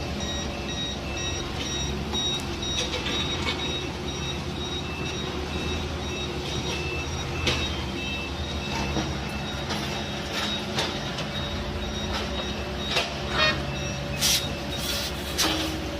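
Engine of heavy road-construction machinery running steadily, with a reversing alarm beeping rapidly through the first half and a few sharp knocks near the end.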